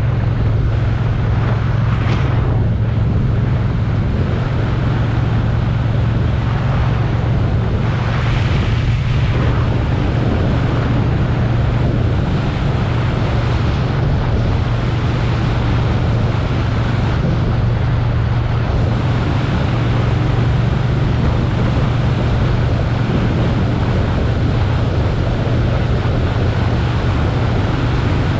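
Motorcycle engine running at a steady cruising pace under way, its low note holding nearly level, with wind rushing over the microphone.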